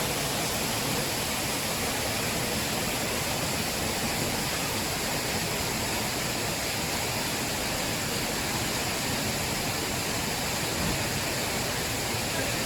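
Steady rushing and splashing of a small waterfall pouring into a fish pool, a constant wash of water noise.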